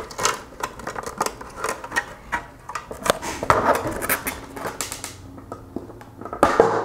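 Plastic lens and housing of a 2004–05 JDM Subaru tail light creaking, clicking and rubbing as they are wiggled apart by hand, with a louder burst of clicks near the end.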